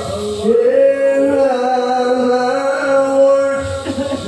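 A male qari reciting the Quran in the melodic tilawah style, holding one long, steady note for about three seconds.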